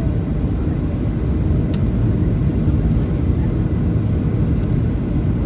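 Boeing 737-700 cabin noise heard from a seat over the wing on final approach with the flaps out: a steady low roar of its CFM56-7B engines and rushing air. A brief faint tick comes about two seconds in.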